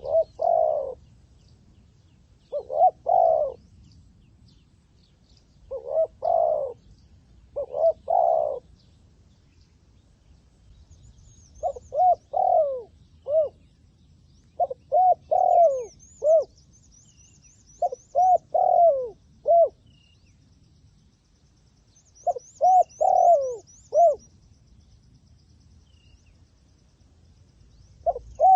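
Zebra dove cooing in repeated phrases of quick, soft notes, a phrase every few seconds. The later phrases are runs of four or five notes, each dropping in pitch. A faint high chittering trill from another small bird comes now and then in the second half.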